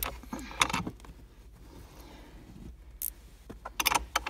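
Sharp metallic clicks and clinks of hand tools and fasteners being handled at a car battery's hold-down bracket. A cluster of clicks comes near the start, a single click about three seconds in and another cluster near the end, with quiet handling rustle between.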